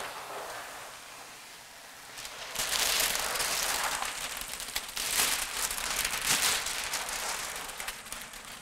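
Clear plastic backing liner being peeled off a large sheet of window film: crinkling and a long crackling peel. It starts softly and grows loud about two and a half seconds in, coming in two main surges.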